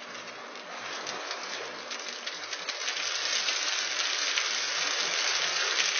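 Roll sizer running, its white sheet travelling over the rollers with a hiss and fine crackle that grows louder over the first few seconds.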